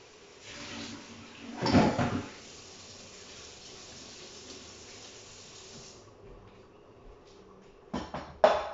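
Water running from a kitchen tap into the sink, with a loud clatter of dishes about two seconds in. The water stops suddenly about six seconds in. Near the end come a few sharp knocks on the counter or wooden cutting board.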